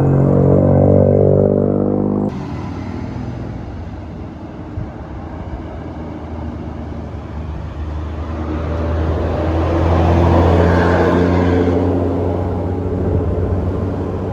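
A bus's multi-tone telolet 'basuri' horn sounding a held chord, cut off abruptly about two seconds in. Then a bus engine rumbles, growing louder to a peak about ten seconds in and easing off again.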